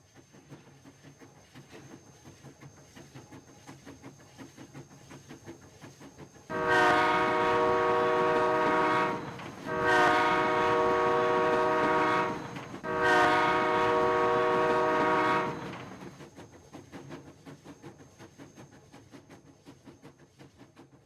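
Train passing with a rhythmic clickety-clack that builds up, then a train horn sounding three long blasts, each about three seconds, before the rattle of the wheels fades away.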